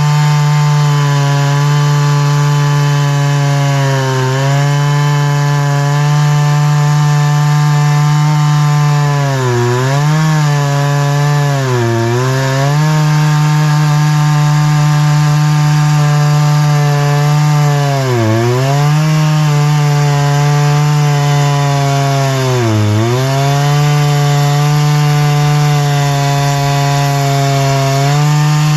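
Chainsaw mill ripping a long tamarack log, the saw's two-stroke engine running near full throttle. Its pitch sags briefly and recovers about five times as the chain loads up in the cut.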